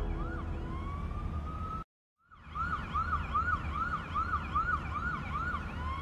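A siren-like sound in electronic background music over a steady low bass. It switches between a slow rising wail and a fast repeated yelp of about three swoops a second. It cuts out to silence for a moment about two seconds in.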